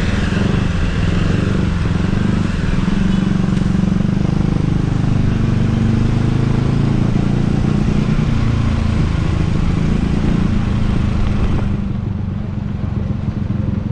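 Modified Vespa automatic scooter engine running under way, heard up close as a steady low drone with a rushing hiss over it. Near the end the hiss drops away and the sound eases.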